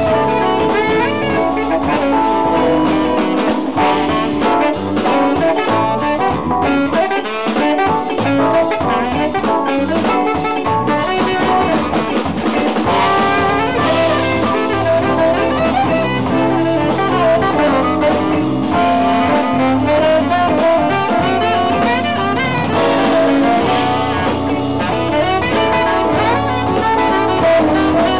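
Live jazz band playing, with a saxophone leading over keyboard and drum kit.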